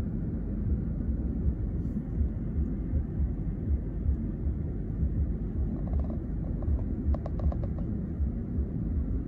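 Low, steady rumble of a car's engine and running gear heard from inside the cabin in stop-and-go traffic. A short run of rapid ticks comes a little after seven seconds in.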